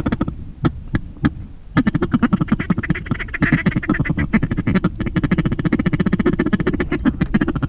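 Hand-blown duck call worked close by in a long, rapid run of short quacking notes, broken by a short pause with a few single notes about a second in.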